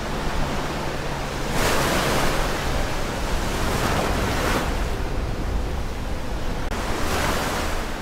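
Ocean surf: a steady wash of waves with three louder surges as waves break, about one and a half seconds in, at about four seconds, and again near the end.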